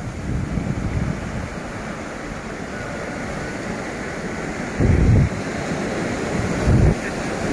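Ocean surf washing over rocks and breaking on a sandy beach, a steady rushing wash. Wind buffets the microphone in two loud low gusts, about five seconds in and again near seven.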